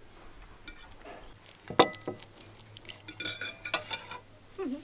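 Metal cutlery clinking and scraping on a china plate while eating, with one sharp clink about two seconds in and a quick run of clinks a second later.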